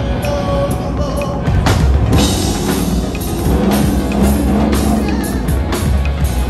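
A live rock band playing: drum kit beats and cymbal hits over a strong low bass line.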